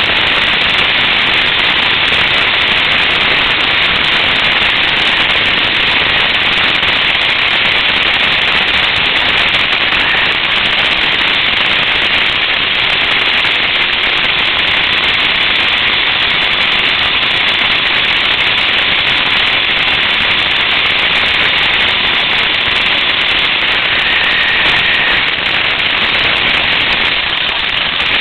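Radio-controlled buggy driving on a paved path, heard through a camera mounted on the car: a loud, steady, harsh noise from the running car.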